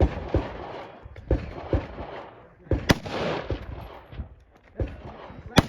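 A string of about ten gunshots at uneven intervals, some in quick pairs, each followed by a short echo off the range.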